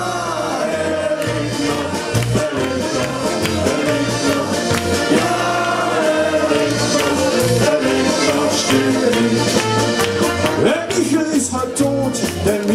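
Live Bavarian-style party band playing: drums, accordion, keyboard and brass over a steady repeating bass beat, with a man singing.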